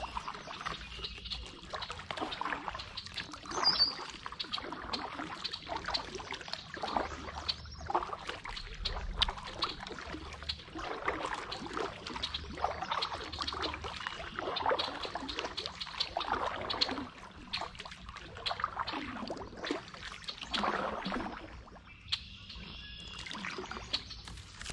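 Kayak paddling: the paddle blades dip and splash in the water, with water trickling and dripping off them between strokes.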